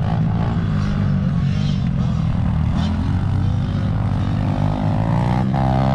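Small off-road engine idling close by, a steady low drone, with a dirt bike's engine revving faintly out on the motocross track, its pitch rising about three and a half seconds in.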